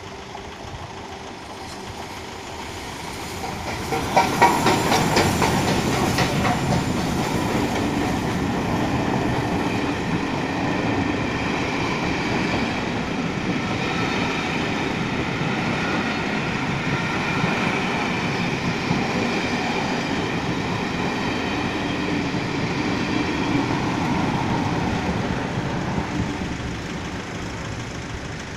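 The Cathedrals Express charter train passing over the level crossing: a steady rumble of wheels on rails that builds about four seconds in, with a run of sharp clicking over the rail joints as the front of the train goes by, then holds steady and fades near the end as the train clears the crossing.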